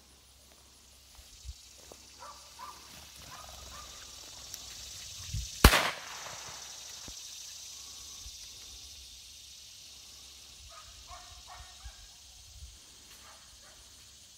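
A single gunshot about five and a half seconds in, sharp and much the loudest sound, with short bird calls a few seconds before it and again near the end.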